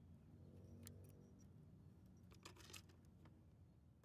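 Near silence: a faint steady low hum with a few faint clicks.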